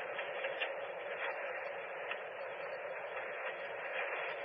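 Steady, even hiss in a police cruiser's dashcam audio, with no clear voice, siren or engine tone.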